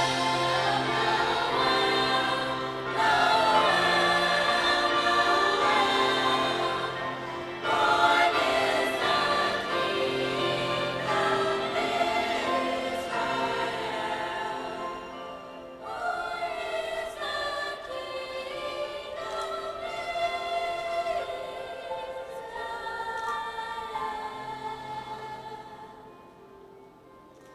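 High school concert choir singing in sustained phrases. The singing softens and fades near the end.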